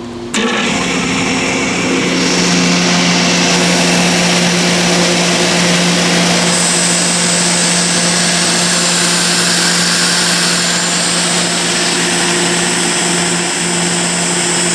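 A 3 HP rotary screw air compressor running, its electric motor turning a yellow cooling fan bolted straight onto the motor shaft: a steady hum with a strong rushing of air.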